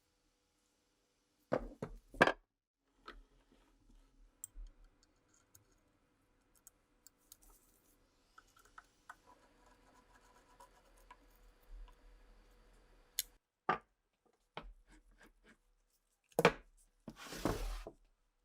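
Hand work on Mosin rifle parts: scattered sharp clicks and knocks, with two loud knocks about a second and a half in and a short scraping sound near the end.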